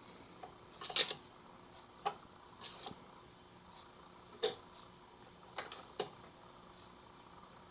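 Scattered light clicks and taps at irregular intervals, the loudest about a second in, over a faint steady hum, from around a Technics SL-B300 turntable.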